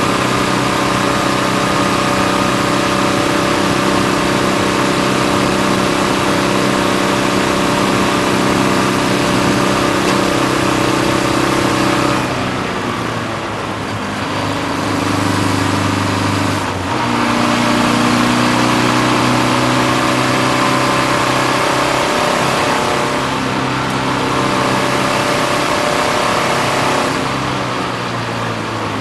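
BMW 330d race car's turbodiesel engine heard from inside the cockpit, running hard at steady high revs. About twelve seconds in it lifts off and the note drops and changes for a few seconds through a corner, then pulls strongly again, easing once more near the end.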